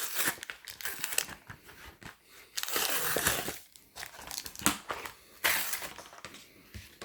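Plastic blister packaging of a Pokémon TCG triple booster pack being opened by hand, crinkling and crackling in irregular bursts, the longest about three seconds in.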